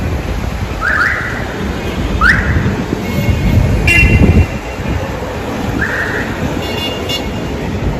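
Busy city street noise: a steady traffic rumble, broken by three short rising chirps and two brief high, horn-like toots.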